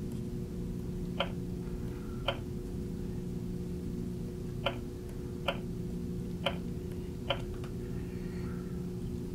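Uniden HomePatrol scanner's touchscreen keypad giving short key clicks as digits are tapped in, six clicks at irregular intervals over a steady low hum.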